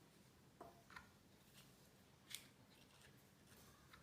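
Faint knife cuts into rose apples as they are sliced and seeded: three soft ticks, about half a second in, a second in and past two seconds, over near silence.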